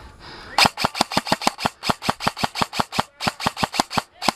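Airsoft gun firing a rapid string of shots, about seven a second, with a brief break near three seconds in and a pause at the very end.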